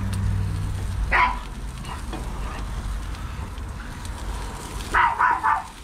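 A dog barking: one bark about a second in, then three quick barks near the end.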